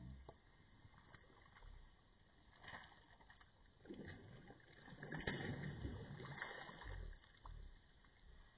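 A hooked pike splashing and thrashing at the water's surface while it is reeled in. The splashing comes in irregular bursts, a short one about three seconds in and the heaviest from about four to seven seconds in.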